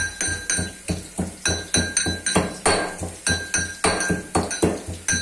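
Pestle pounding ginger in a mortar: rapid, even strikes about four a second, each with a short metallic ring.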